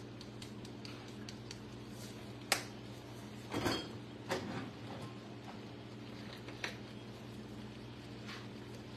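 A few short knocks and clatters of jars and kitchen items being picked up and set down at a counter and cupboard shelf, over a steady low hum.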